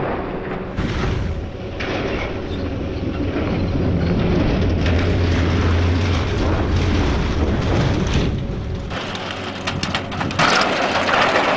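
Steel-framed water towers toppling and crashing to the ground one after another: heavy rumbling crashes, with the low rumble strongest in the middle and a loud burst of crashing near the end.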